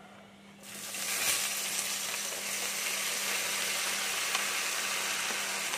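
Cut pumpkin stems, pointed gourd and brinjal tipped into hot oil in a kadai: a sudden sizzle starts about half a second in as the vegetables hit the oil, then holds steady.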